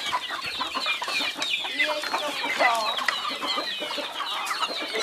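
A flock of chickens clucking and calling at feeding time, many short calls overlapping without a break.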